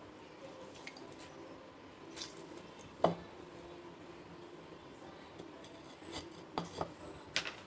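Quiet handling of kitchen utensils and a bowl: a few light clicks and taps, the sharpest about three seconds in and a cluster near the end.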